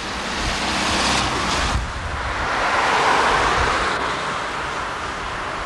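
A car passing on the street, its tyre and engine noise swelling to a peak about three seconds in and then fading, with wind rumbling on the camcorder microphone.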